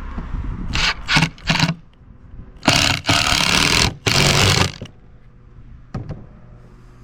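Impact driver driving a screw: three short blips about a second in, then three longer bursts of hammering between about three and five seconds in.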